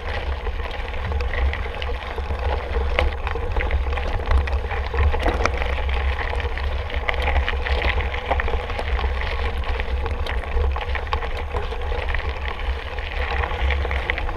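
Mountain bike rolling over a rough trail: a steady rumble of wind on the microphone, with many small clicks and rattles from the bike and the ground under the tyres.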